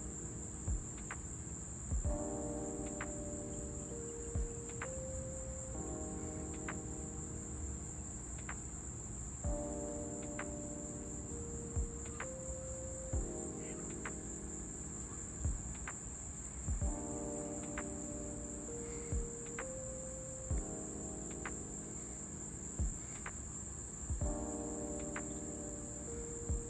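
Insects chirring in one steady, high-pitched drone, with a short melody in the background that repeats about every four seconds and brief clicks every second or two.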